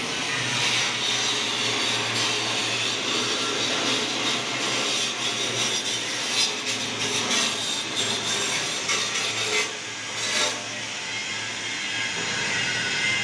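Steady hissing and crackling of argon-shielded MIG welding on an aluminium boat hull, over a low steady electrical hum, with a few short louder cracks in the second half.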